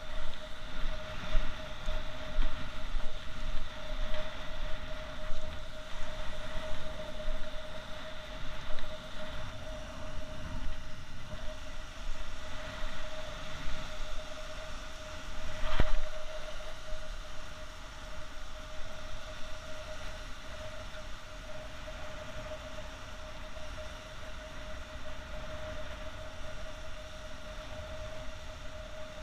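Small waves washing onto the shore, with wind buffeting the microphone, over a faint steady high tone. One sharp knock about halfway through.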